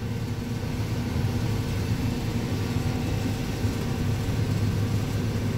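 Combine harvester running steadily, heard from inside its cab: a constant low engine drone with a few steady tones above it.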